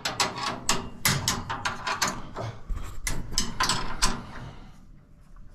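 Rapid clattering of sharp metal knocks and clicks as metal parts are handled and set in place inside a combine harvester's sieve area, dying away about four seconds in.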